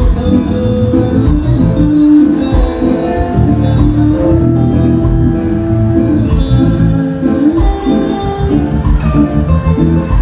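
Live reggae band playing with a steady beat, heard loud from the stage.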